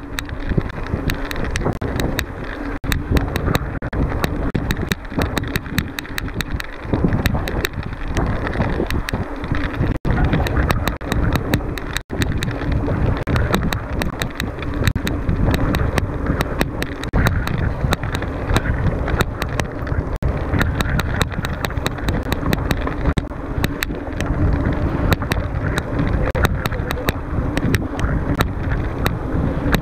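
Mountain bike ridden over rough ground: continuous tyre and trail noise with a dense run of sharp rattling clicks, and wind buffeting the microphone.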